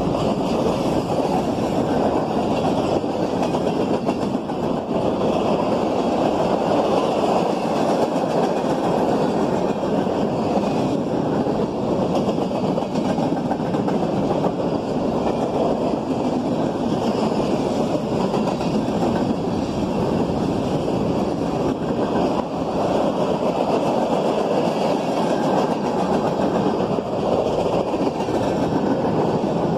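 Union Pacific manifest freight train rolling past, with a steady, continuous noise of steel wheels running on the rails.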